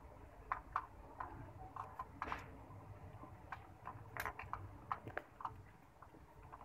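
Faint, irregular small clicks and taps of insulated wires and small plastic electrical parts, a rocker switch and a lamp socket, being handled and connected by hand.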